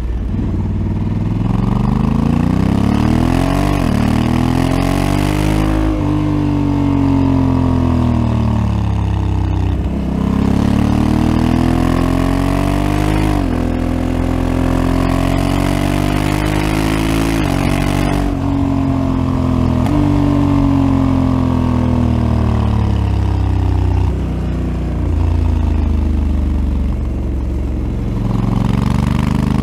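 Honda Africa Twin CRF1100L's 1084 cc parallel-twin heard through its stock exhaust while riding. The revs climb under acceleration and drop sharply at each upshift, easing down in between, several times over.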